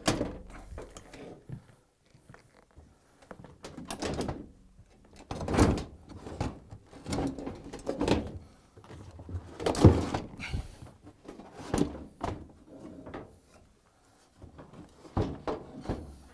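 Heavy washer tub assembly bumping and knocking against the cabinet and floor as it is wrestled out of a Samsung front-load washer: a string of irregular dull thunks, the loudest about ten seconds in.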